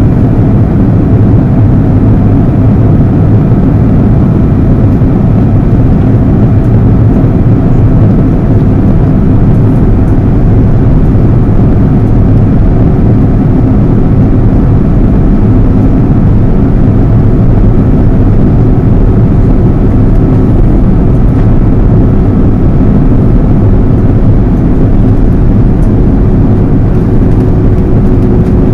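Inside the cabin of an Airbus A330-200 on descent: the steady, loud rumble of the jet engine and rushing air, heard from a seat beside the engine. A faint steady hum grows a little stronger about halfway through.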